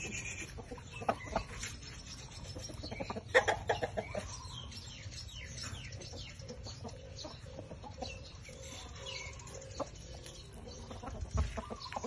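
Chickens clucking in short, scattered calls, with a louder cluster of calls a little over three seconds in.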